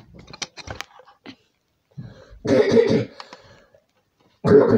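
A person coughing twice, a longer cough near the middle and a shorter one near the end, after a few light clicks in the first second.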